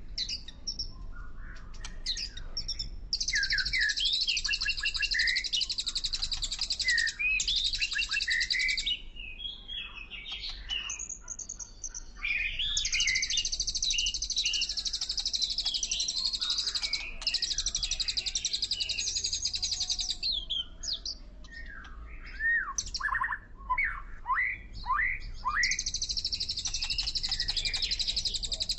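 Birds singing: long, high, rapid trills lasting a few seconds each alternate with quick sweeping chirps and whistles, over a faint low rumble.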